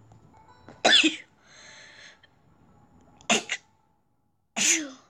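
A child coughing: three short coughs, about a second in, a little past three seconds, and near the end.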